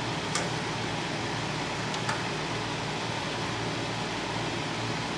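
Steady fan-like background noise, with two faint light clicks, about half a second and two seconds in.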